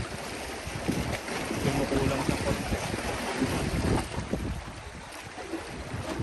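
Wind gusting on the microphone, with choppy lake water lapping against the shoreline rocks; the gusts ease after about four seconds.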